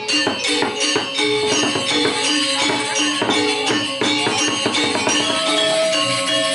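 Balinese gamelan music: bronze metallophones struck in a quick, even rhythm with small cymbals jingling over them.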